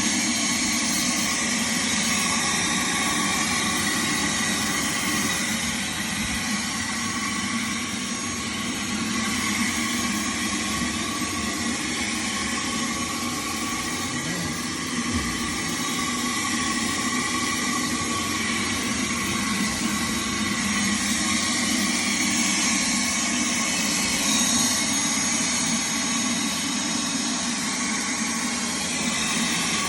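Shop vac running steadily with a whining motor, its hose drawing the air out of a foam cushion sealed in plastic furniture wrap.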